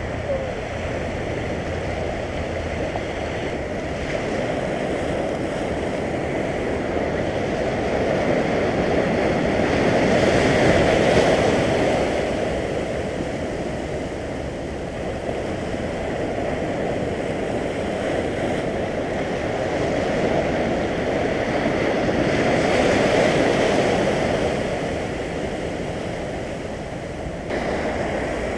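Sea waves breaking and washing over a flat rock shelf in a steady surf noise, swelling louder twice, about eleven seconds in and again some twelve seconds later.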